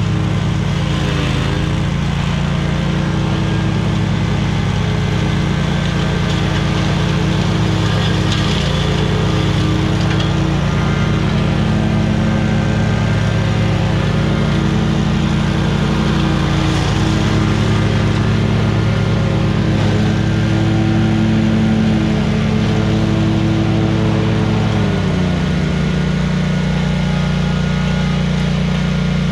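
Small power-equipment engine running steadily under load while cutting overgrown grass, its speed dropping a little about 25 seconds in.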